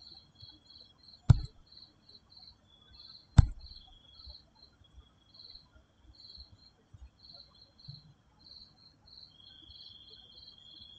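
Insects chirping: short high chirps about three a second over a steady high trill. Two sharp knocks stand out louder, about a second in and again two seconds later.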